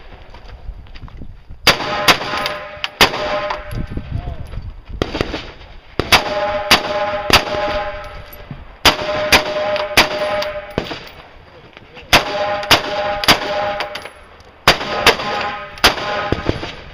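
Rifle shots fired in quick strings of two to four, a new string about every three seconds. After several shots a steady ringing tone sounds, as steel targets are hit.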